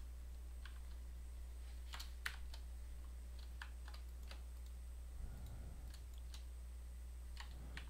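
Computer keyboard keys clicking: sparse, scattered single key presses for shortcuts, over a faint steady low hum.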